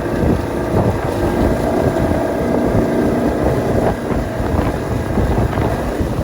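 Motorboat engine running under way, with wind buffeting the microphone.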